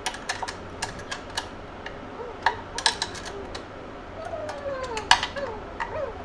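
Irregular clicks and taps of tools and metal parts being handled during hand assembly of an electric dirt bike, with a few short squeaks in the middle.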